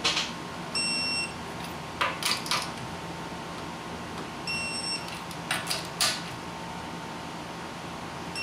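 Electronic torque wrench beeping twice, about half a second each, as lug nuts reach the set torque of 80 foot-pounds. Between the beeps come short clacks of the wrench and socket being moved from nut to nut.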